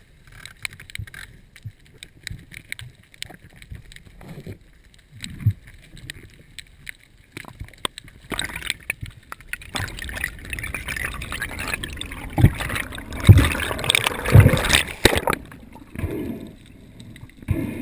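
Underwater noise heard through a camera's waterproof housing: scattered clicks and ticks at first, then from about eight seconds in a louder rush of moving water with a few heavy thumps, easing off near the end.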